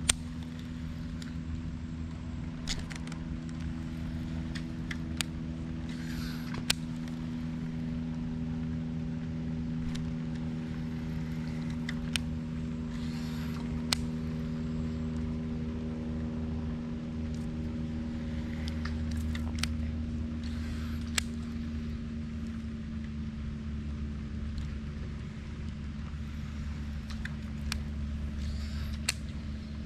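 A steady low hum made of several held pitches, like an engine running, goes on throughout. Over it come a dozen or so sharp clicks and, four times, a brief whirring hiss as a Daiwa SS Air baitcasting reel is cast and wound back in.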